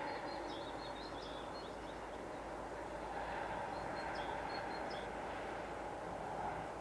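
Outdoor ambience: a steady rushing noise with small birds chirping, short high calls scattered through the first few seconds and a few more near the middle.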